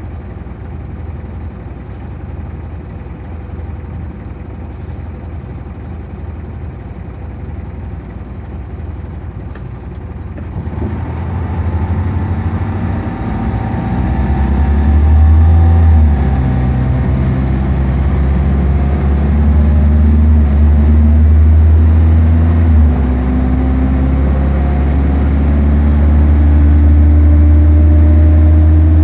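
Bus diesel engine heard from inside the passenger cabin: idling at first, then about ten seconds in the bus pulls away and the engine note climbs as it accelerates through the gears, with two gear changes.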